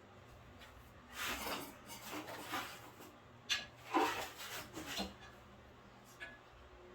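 Parts rubbing and scraping against each other as a disc sander is being put together by hand, in a few bursts with a couple of sharp knocks about three and a half and four seconds in, over a faint steady hum.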